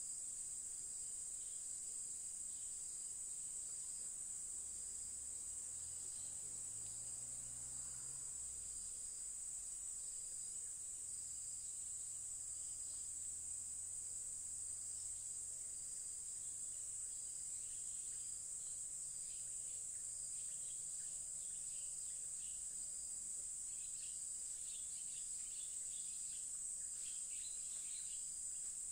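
Forest insects droning steadily at a high pitch, with a fainter pulsing buzz beneath it. A faint low rumble passes about six to nine seconds in, and faint short chirps come near the end.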